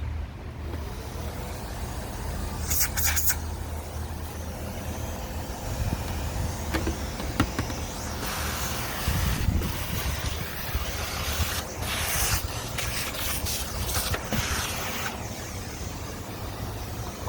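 Canister vacuum cleaner running, sucking debris out of a clogged vacuum's parts, its rushing airflow rising and falling in several louder stretches over a steady low hum.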